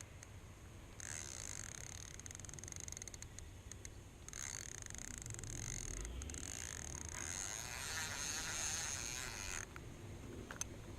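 Insects buzzing, a steady high-pitched drone that starts and stops in stretches of several seconds, with faint chirping near the middle.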